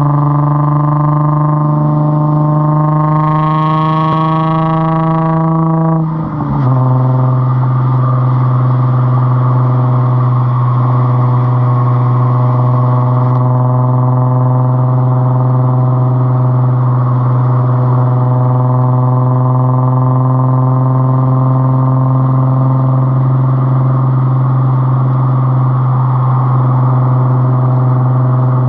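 Straight-piped Nissan 350Z's 3.5-litre V6 exhaust, heard right at the tailpipe, running at steady revs under way with a loud, even drone. About six seconds in the note briefly dips and falls, then settles again a little lower.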